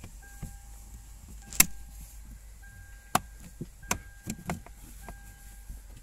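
Plastic under-dash trim cover of a car being pushed back into place: a series of sharp plastic clicks and knocks as its clips snap in. The loudest comes about one and a half seconds in, and a few more follow between about three and four and a half seconds.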